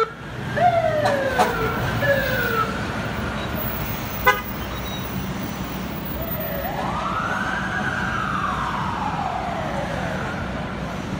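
Emergency vehicle sirens in heavy city traffic: a few quick sweeps that jump up and slide down in the first three seconds, a brief horn blast about four seconds in, then one slower wail that rises and falls away. Steady traffic rumble underneath.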